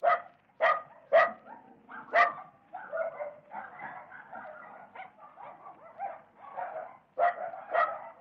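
Dogs barking and yapping: sharp single barks at irregular intervals, a lull through the middle, and a quick pair of barks near the end, with steady yapping in between.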